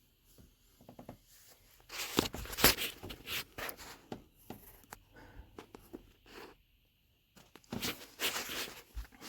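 Scraping and rustling handling noises in two spells, about two seconds in and again near the end, with quieter stretches between.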